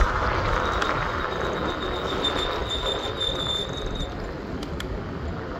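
City street traffic rumbling as vehicles pass, with a high, thin squeal that starts about a second in and holds steady for about three seconds.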